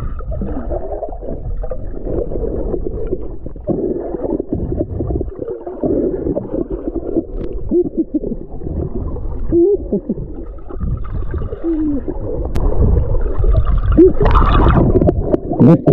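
Muffled underwater water sound: a steady low sloshing and gurgling with short squeaky bubbling blips, getting louder in the last couple of seconds.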